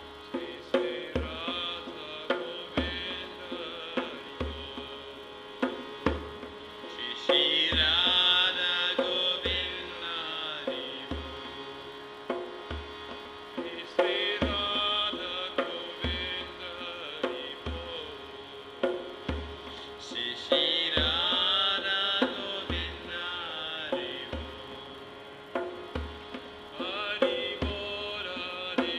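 Devotional bhajan played on a harmonium and a hand drum. The harmonium holds steady chords under a regular drum beat, and voices sing phrases over them at intervals.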